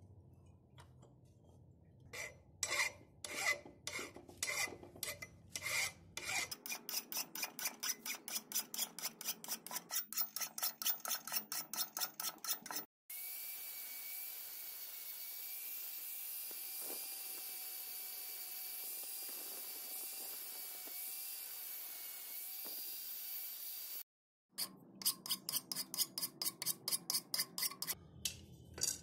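Hand file rasping on a rusty steel axe head clamped in a vise, shaping its edges: a few uneven strokes, then quick even ones, about five a second. Then, for about ten seconds, an angle grinder with a flap disc runs steadily against the axe head with a high whine, before the file strokes start again near the end.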